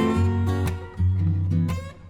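Background music: strummed acoustic guitar with bass notes.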